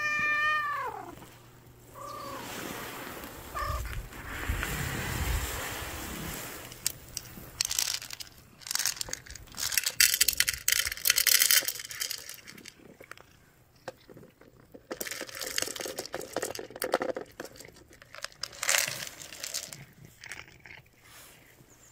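A cat meows once with a falling end, then gives two short chirps. Dry cat food rattles out of a plastic jar into a bowl in a dense crackling run around the middle, and near the end comes intermittent crunching as the cat eats the kibble.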